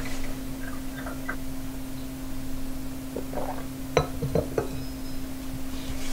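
A few light clinks of a porcelain coffee cup against its saucer, the sharpest about four seconds in, with soft paper handling. A steady low hum runs underneath.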